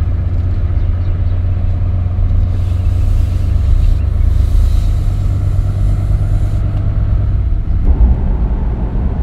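Chevrolet Silverado Duramax diesel pickup driving while flat-towing a Jeep Wrangler, heard from inside the cab: a steady low engine and road rumble, with more road noise from about 8 seconds in.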